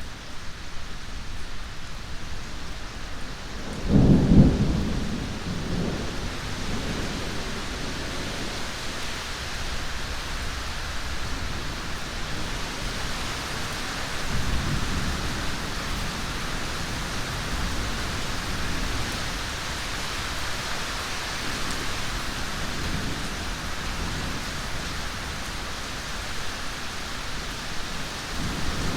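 Steady heavy rain with rolling thunder: a loud low crack-and-rumble about four seconds in, then fainter rumbles of thunder later on under the constant rain.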